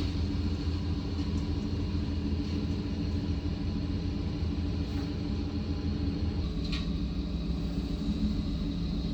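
Truck engine running steadily at idle, a constant low hum, with one brief high chirp about seven seconds in.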